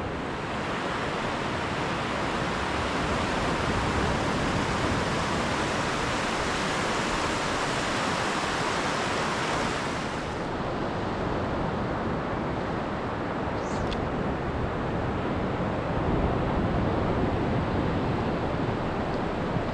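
Surf breaking and washing up a flat sandy beach, a steady rushing noise with some low wind rumble; the upper hiss thins out about ten seconds in.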